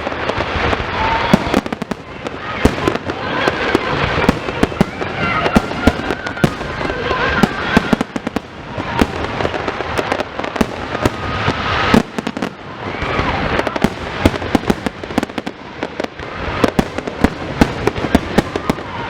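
Fireworks display: rapid, overlapping bangs and crackling bursts, several a second, with no pause.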